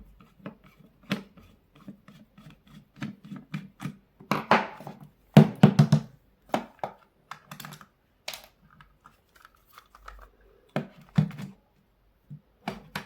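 Plastic housing of a Crown cordless drill being taken apart by hand: irregular clicks, knocks and rattles of plastic parts and screws, with a louder run of knocks about four to six seconds in.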